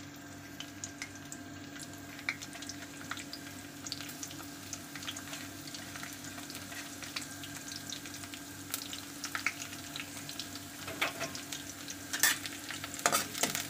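Sliced garlic frying in hot oil in an iron kadai: a steady sizzle with light crackles throughout, and a few louder clicks near the end.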